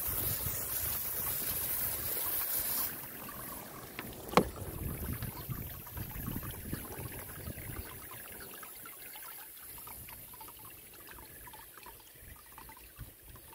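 Garden hose spray nozzle hissing as water jets onto rough fire opal and rock in a screen box, cutting off abruptly about three seconds in. A single sharp click follows about a second later.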